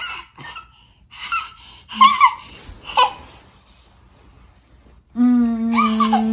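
A toddler laughing and squealing in short, high-pitched bursts during the first three seconds. About five seconds in, a steady, held musical note starts and carries on.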